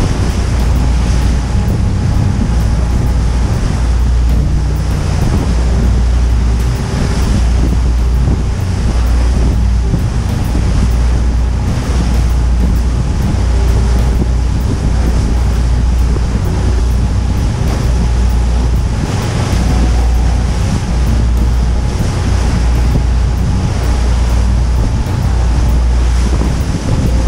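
Wind buffeting the microphone in heavy low gusts, over the rush of water and engine noise of a tour boat under way on open water.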